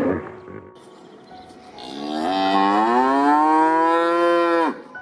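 Highland cow mooing: one long call starting about two seconds in, rising in pitch and then holding, breaking off with a sharp drop near the end.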